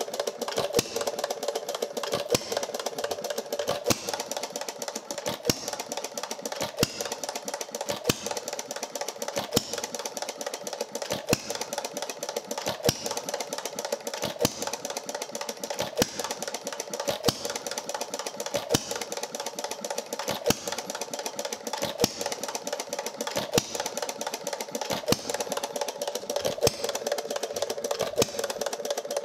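Early-1900s Carlisle & Finch quarter-horsepower hit-and-miss gas engine running, with a steady rapid clatter from its mechanism. A louder sharp report comes about every second or so.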